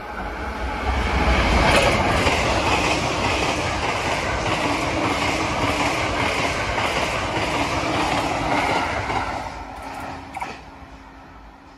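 JR East E353 series limited express electric train passing through a station at speed without stopping. The rush of wheels on rail swells quickly, with a rhythmic clickety-clack of wheels over rail joints, then fades as the train draws away, with one sharp click near the end.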